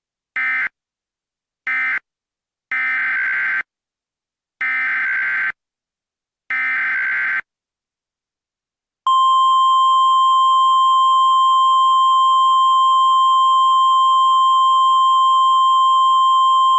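NOAA Weather Radio SAME digital data bursts: two short end-of-message bursts, then three longer header bursts about two seconds apart, the coded signal that sets off weather radios for a new warning. About nine seconds in, the steady 1050 Hz Weather Radio warning alarm tone starts and holds.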